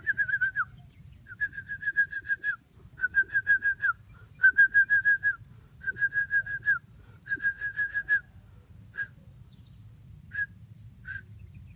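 A person whistling to call a dog: about six quick trilled bursts of roughly a second each, followed by a few single short whistles near the end.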